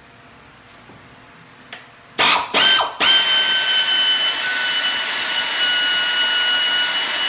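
Power ratchet spinning out the belt tensioner's bolt: two short bursts a little after two seconds in, then a steady high whine with hiss for about four and a half seconds.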